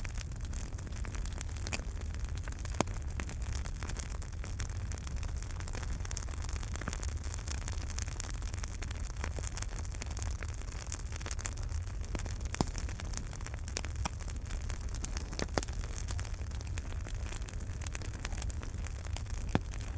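Wood fire burning in a fireplace: a steady low rumble and hiss with constant small crackles and a few louder pops.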